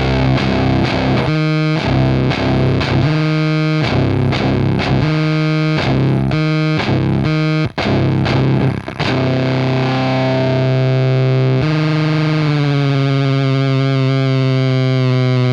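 Electric guitar through a gnarly vintage-voiced fuzz pedal (a Soda Meiser-style fuzz), heavily distorted, into a tube amp. Rhythmic chord strokes for about nine seconds, then a single held note that sustains and starts to waver, with the pedal's feedback-loop footswitch engaged.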